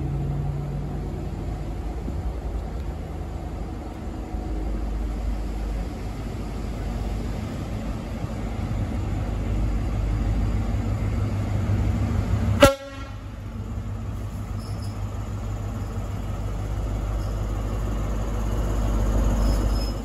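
Diesel High Speed Train power car running steadily toward and past a platform, a low engine rumble with wheel and rail noise that swells near the end. About two-thirds of the way in there is one very short, sharp blip.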